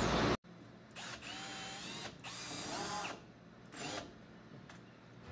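Cordless drill driving screws in short runs of about a second each, its motor whine rising and falling with the trigger. Just before this, a louder stretch of mechanical clatter cuts off abruptly.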